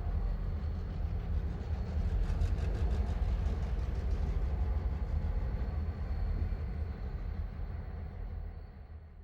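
Railway yard ambience: a heavy, steady low rumble of trains and rolling stock, with a faint high whine over it, fading out over the last couple of seconds.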